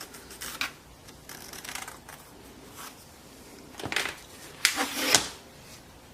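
Workshop handling noises: a scattered series of light clicks and knocks as a piece of plywood and tools are moved and set down, with the loudest knocks about four and five seconds in.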